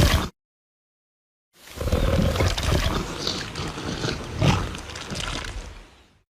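Tyrannosaur roar sound effect: the tail of one roar cuts off, then after about a second's gap a long rough roar of about four and a half seconds fades out.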